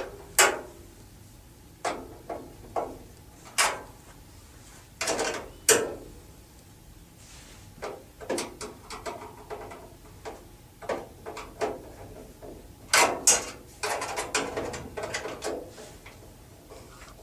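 A 3/8 inch ratchet wrench tightening bolts: irregular short runs of metallic clicking and clanking as the handle is worked back and forth, with pauses between strokes.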